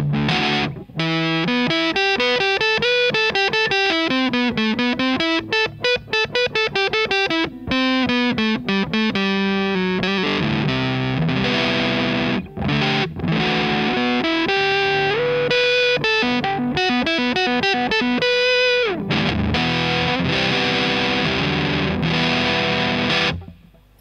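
Electric guitar through a Pickdropper Mini Muffin Big Muff fuzz clone with the sustain knob at minimum, giving a lighter crunch that sounds a bit like an overdrive, heard from the amp. Fast single-note picking for the first ten seconds or so, then held notes with a bend up, a slide down, and fuller ringing notes that stop about a second before the end.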